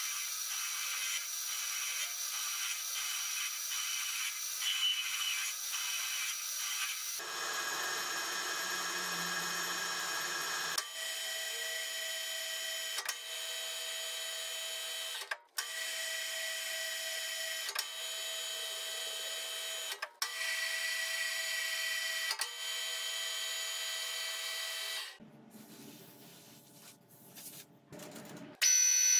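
Metal lathe running and cutting steel, the tool turning and thread-cutting a steel tube: a steady gear and motor whine with the scrape of the cut. It shifts in pitch and loudness abruptly several times, and drops much quieter for the last few seconds.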